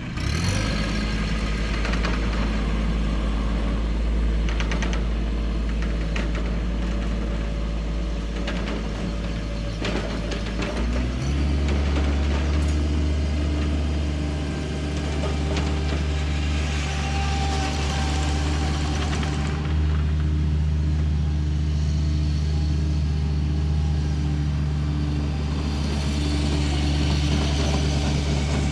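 An engine running steadily at a low speed, then stepping up to a higher steady speed about eleven seconds in. A few knocks sound in the first ten seconds.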